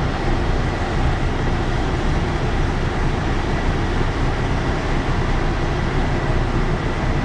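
Heavy rain pouring down, a steady dense hiss with no breaks.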